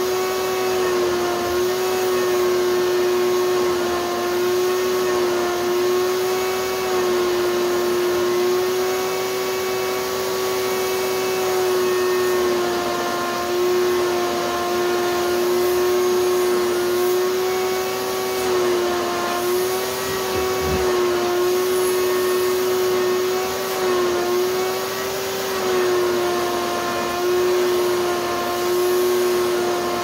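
Shop vac running steadily with a high motor whine. Its pitch and loudness dip and waver briefly every few seconds as the gown's fabric is sucked against the hose nozzle. One soft low thump comes about two-thirds of the way through.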